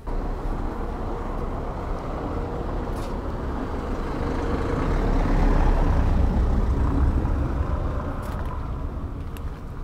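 A motor vehicle passing close by on the street: engine rumble and road noise that come in suddenly, swell to a peak about five to seven seconds in, then ease off.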